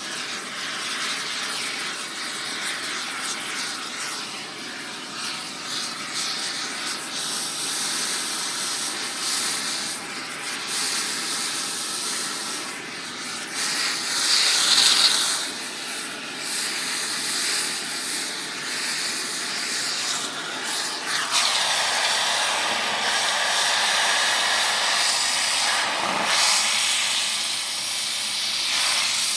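Air torch hissing steadily against metal, swelling louder about halfway through and turning to a harsher, brighter hiss in the last third.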